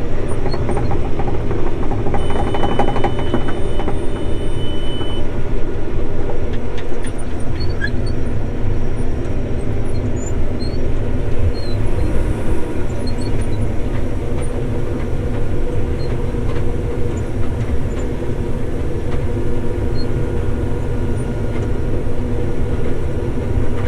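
Case IH 7130 combine running steadily under harvest load. A steady high tone sounds for about three seconds near the start.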